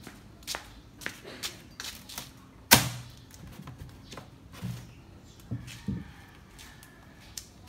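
Irregular clicks and knocks from a roll of packing tape being worked around a styrofoam box, with one sharp knock almost three seconds in and a few duller thuds later.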